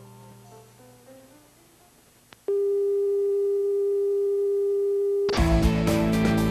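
Soft melody notes fade out. After a click, a steady, even test tone sounds, the tone that accompanies a TV station's colour-bar sign-off. About five seconds in it is cut off by the abrupt start of louder band music.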